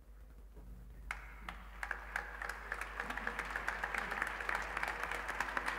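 Audience applause and clapping, swelling from about a second in and growing louder.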